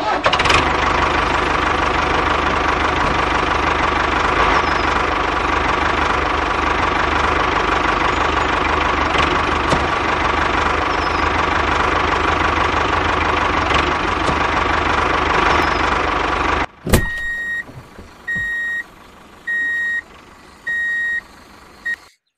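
Small electric motor of a homemade toy tractor running steadily with a constant whine, cutting off suddenly near the end. It is followed by a series of evenly spaced beeps, about one a second, each under a second long.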